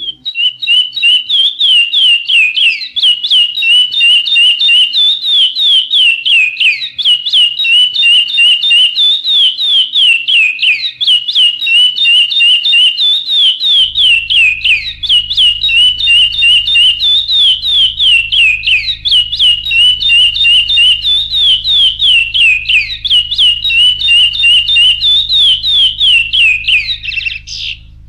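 A songbird singing an unbroken run of quick, high whistled notes, phrases of downward slurs and held notes repeating every few seconds. It starts and cuts off abruptly.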